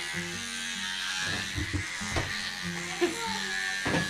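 Background music with sustained notes, with a few short knocks mixed in, over a steady hiss.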